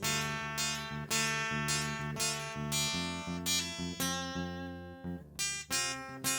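Acoustic guitar playing an instrumental piece: chords plucked and strummed, each left ringing before the next.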